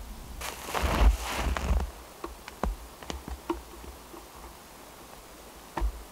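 Rustling and crunching as a trap and catch are handled in snow, lasting about a second and a half. A few light clicks and taps follow, and a duller knock comes near the end.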